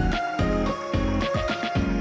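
Background music: a stepping melody over a pulsing bass.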